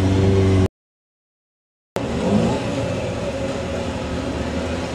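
Sportbike engine held at high revs during a wheelie, its pitch rising, then cut off abruptly under a second in. After about a second of dead silence a motorcycle engine comes back in, running at steady revs with a rougher, noisier sound.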